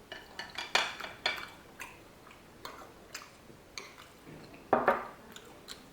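Eating utensils clinking and knocking against dishes at the table: a string of separate sharp clicks, the loudest about a second in and about a second before the end.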